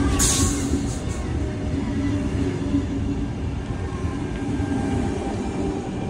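Sydney Trains Tangara electric train pulling into the platform, its cars rolling slowly past with steady running noise and a low steady tone. A brief high hiss sounds just after the start.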